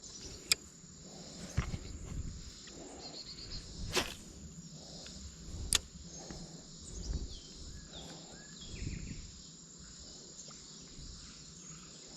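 Steady high buzzing of summer insects, with low rustling and three sharp clicks from handling gear.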